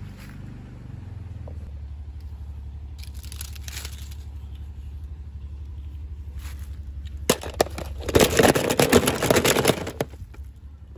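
Plastic packaging crinkling and being handled, with scattered rustles and a dense burst of crackling about eight seconds in, over a steady low hum.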